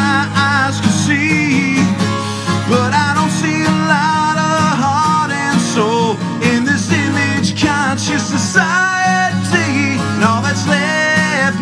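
A man singing over a strummed twelve-string acoustic guitar, in a country-folk style.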